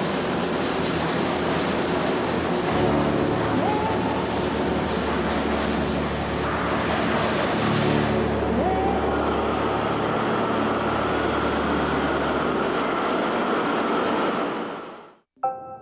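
Steady, loud machinery noise of a slaughterhouse pig-scalding tank, a rumbling hum with a few short rising squeaks. It fades out near the end, and soft piano music starts.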